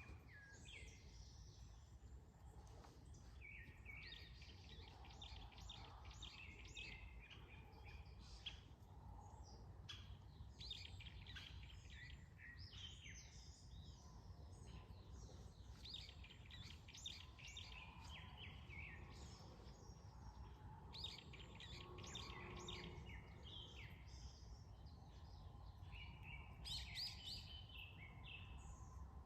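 Small songbirds chirping and trilling faintly in quick, repeated phrases, over a steady low rumble of outdoor background noise.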